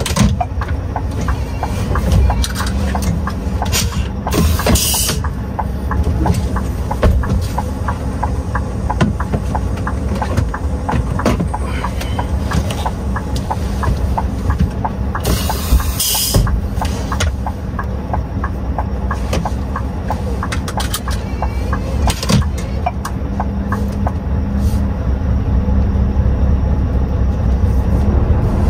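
Scania V8 truck engine running under load as the lorry pulls away and drives, a steady low rumble with rattles, building a little near the end. Two short hisses of air sound, one about four seconds in and one about fifteen seconds in.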